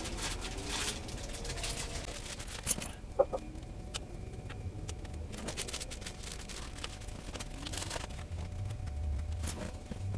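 Ground beef sizzling and popping in a pan on a wood-burning tent stove, a dense crackle with a couple of sharper clicks about three seconds in. A low steady hum runs underneath.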